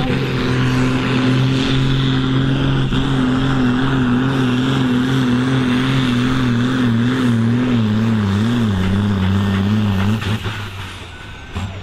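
Fiatagri tractor's diesel engine pulling a competition sled under heavy load. Its steady note starts to waver about three seconds in, dips lower near the end of the pull as the load builds, then falls away about ten seconds in as the run finishes.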